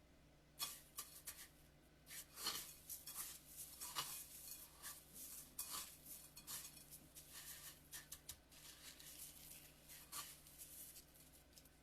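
Faint, irregular clicks, taps and rustles of kitchen handling, as food and utensils are moved about on a counter.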